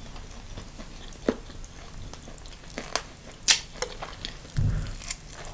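Close-miked eating sounds from spicy Korean fried chicken and chicken feet being chewed and sucked off the bone: scattered small wet clicks and smacks. A brief low thud comes near the end.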